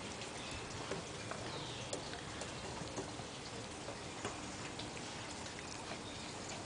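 Steady faint outdoor background hiss with scattered soft ticks and clicks.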